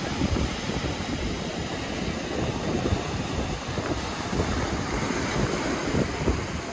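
Wind buffeting the microphone: an uneven, gusty low rumble over a steady rushing noise.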